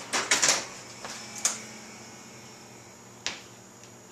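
Buttons on an oven's control panel being pressed to set it to 350°F: a quick run of sharp clicks in the first second, a couple more shortly after, and a last single click about three seconds in.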